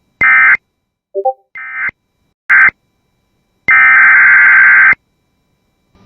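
Emergency Alert System SAME data bursts: short, harsh digital screeches separated by pauses, then a longer one about four seconds in, with a brief three-note electronic blip about a second in. The bursts mark the end of one alert message and the start of the next.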